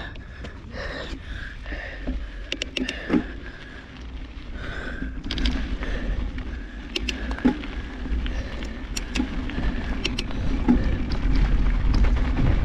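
Mountain bike riding down a rough trail, heard from a handlebar-mounted action camera: a steady low rumble of wind and trail vibration with scattered sharp knocks and rattles from the bike, getting louder toward the end.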